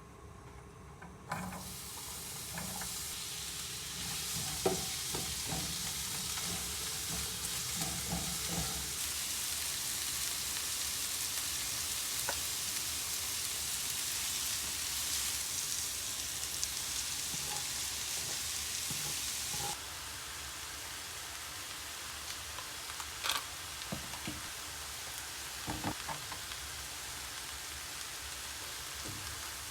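Food sizzling on a hot teppanyaki griddle, a steady hiss that starts suddenly about a second in and drops slightly about two-thirds of the way through, with a few sharp clicks.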